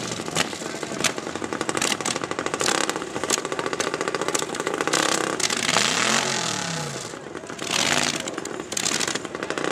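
Small mini bike engines running at the start line, with the fast, rattly firing of little motors; about six seconds in, one engine is revved up and let back down.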